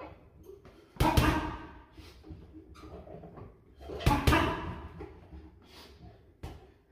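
Boxing gloves punching a hanging heavy bag: a hard hit about a second in and two quick hits around four seconds in, with lighter knocks between.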